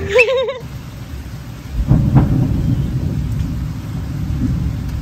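Thunder rumbling over steady rain during a thunderstorm. The low rumble swells up about two seconds in and rolls on, over the hiss of the rain.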